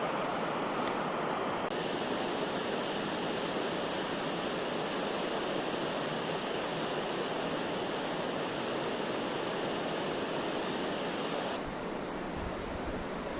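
Steady rush of fast-flowing water from a mountain stream in flood. Its tone changes abruptly about two seconds in and again near the end.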